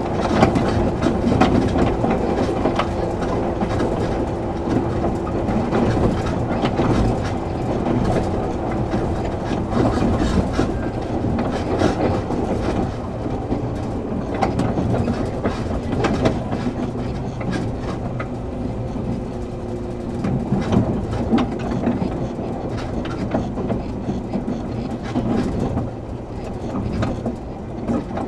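Running sound inside a moving JR 113 series 7700-subseries electric train car: a steady rumble of motors and wheels with scattered rail-joint clicks. A faint steady tone sits in the rumble for roughly the first ten seconds, then weakens.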